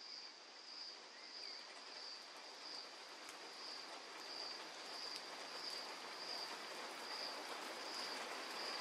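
Opening of an electronic techno track: a faint hiss swelling slowly in level, with a high cricket-like chirp pulsing about once every 0.7 seconds, before any beat.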